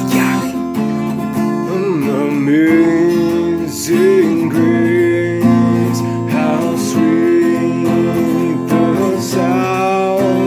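Man singing with his own strummed acoustic guitar, the voice coming in phrases over steady chords.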